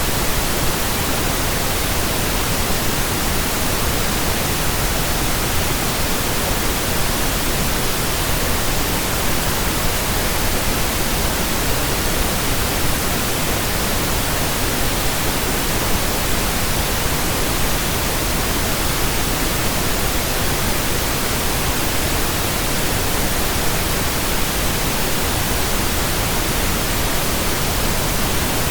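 Steady synthesized pink noise: an even hiss with no tones, rhythm or changes.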